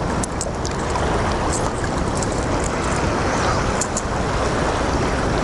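Steady rushing of river water below a dam, with a few faint clicks over it.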